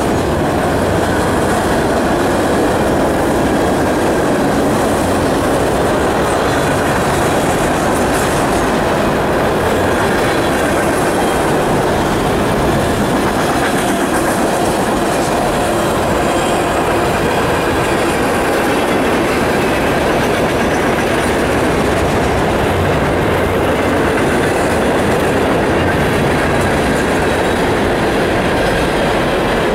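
Freight train cars rolling past: a steady, loud rumble of steel wheels on rail from a string of tank cars, boxcars and coal hoppers.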